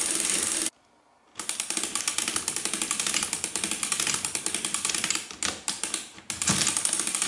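Friden STW 10 mechanical calculator's mechanism running: a fast, steady train of ratcheting clicks and clatter. It breaks off into silence for a moment about a second in, and thins out briefly near the end.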